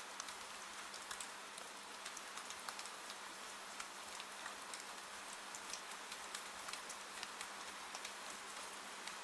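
Rain falling steadily, a soft even hiss with many small sharp drop ticks scattered through it, the patter of drops striking a window.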